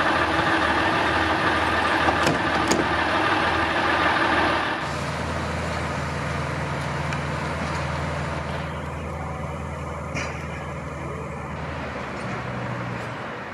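Class 142 Pacer railbus's underfloor diesel engine idling close by, a dense steady sound. About five seconds in it gives way to a quieter, steady low diesel hum.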